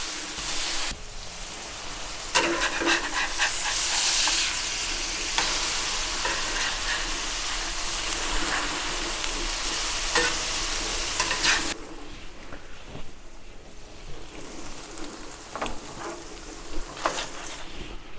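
Beef burger patties and onions sizzling on the steel plate of a Pit Boss Ultimate two-burner gas griddle, with a metal spatula scraping and clicking on the plate. About twelve seconds in the sizzle suddenly gets quieter, with a few more spatula clicks after.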